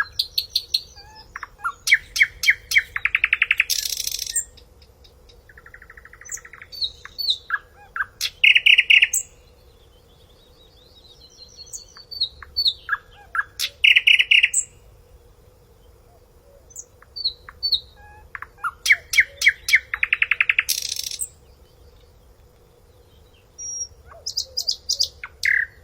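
Blue-throated barbet calling: bouts of rapid, rhythmic notes repeated every few seconds, with higher-pitched chirps between the bouts.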